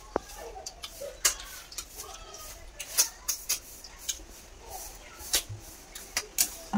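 Eating sounds from freshwater snails (ghongha) being sucked out of their shells with rice by hand: about a dozen sharp, irregular sucking clicks, a second or less apart at times.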